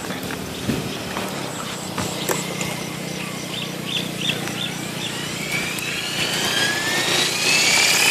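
JR Forza 450 electric RC helicopter spooling up on the ground. From about five seconds in, the motor and main rotor give a whine that climbs steadily in pitch and grows louder as the rotor comes up to speed.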